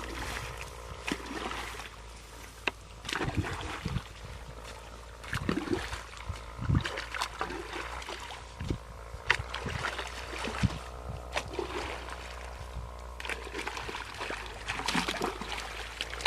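Water splashing and sloshing in irregular strokes, as when a cast net is worked in shallow water, over a steady droning tone.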